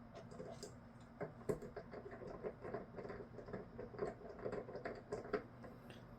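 Bichon puppy scratching and pattering while it plays: a quick, irregular run of light taps and scratches, busiest from about a second in until near the end.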